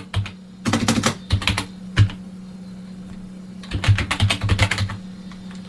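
Typing on a computer keyboard: quick runs of keystrokes, a gap of about a second and a half in the middle, then another fast run, over a steady low hum.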